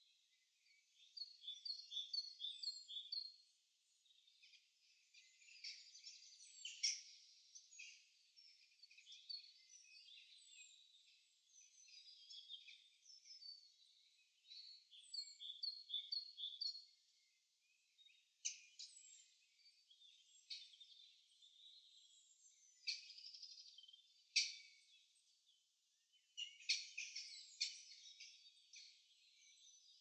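Faint songbirds singing: short phrases of chirps, trills and quick repeated notes, several overlapping songs, coming and going with brief gaps.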